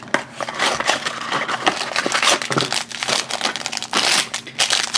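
A small cardboard blind box being pulled open by hand, then the foil bag inside crinkling and tearing as it is opened, a dense run of crackles and rustles.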